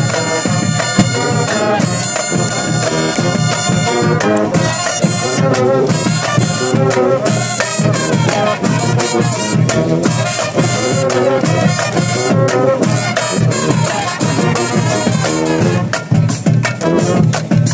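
Brass marching band playing a lively tune: trumpets and sousaphone with sustained brass chords over a steady drum beat.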